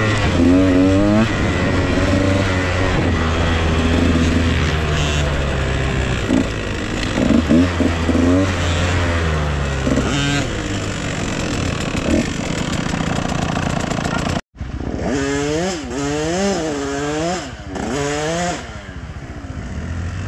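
Off-road dirt bike engines running on a trail, revving up and down again and again with the throttle. The sound cuts out for an instant about two-thirds of the way through.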